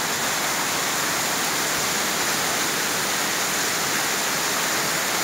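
Heavy rain pouring down in a tropical downpour, a steady even hiss.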